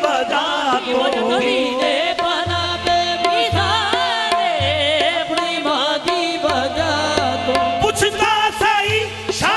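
Qawwali music: a lead singer's ornamented, gliding vocal line over sustained harmonium notes, with repeated low drum strokes and sharp percussive hits.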